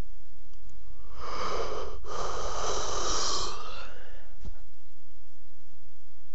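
A sleeping person snoring: one long, wheezy, whistling snore lasting about two and a half seconds, with a brief break in the middle.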